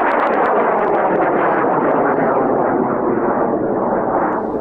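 High-power rocket motor burning: a loud, steady rushing noise with a fine crackle, fading near the end.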